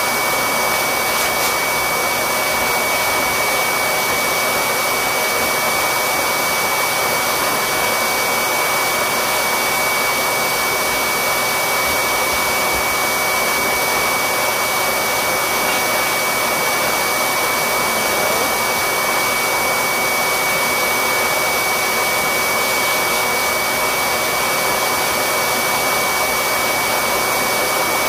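Electric blower motor running steadily: a constant rush of air with a steady high whine.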